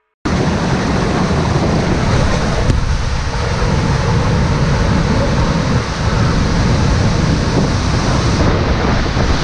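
Water rushing down an enclosed tube water slide around a rider sliding feet-first, a loud steady rush of water that starts abruptly just after the beginning.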